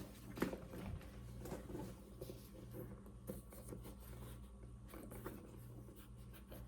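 Soft rustling and light scattered clicks of a pebbled-leather handbag being handled and felt over while its pockets are searched, over a steady low hum.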